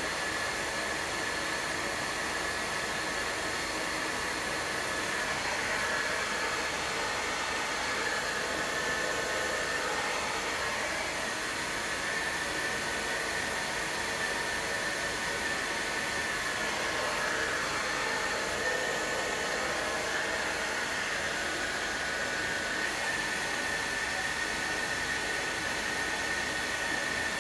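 Hand-held hair dryer blowing steadily, a rushing air noise with a high whine, aimed at a scooter's front axle nut to heat the threadlocker so the nut can be loosened.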